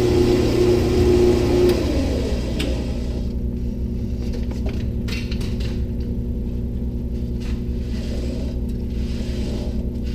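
Grizzly G0602 metal lathe turning steel: the tool cuts with a steady tone and hiss for a couple of seconds, then the cut ends and the lathe runs on with a steady hum, with a few light clicks.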